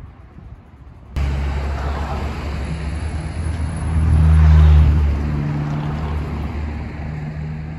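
Road traffic: a low motor-vehicle engine hum comes in suddenly about a second in, swells to its loudest around halfway and then eases off, like a vehicle passing on the street.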